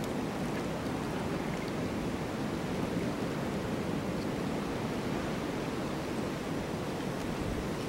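Wind blowing steadily through a snowstorm, an even rushing noise that neither rises nor falls.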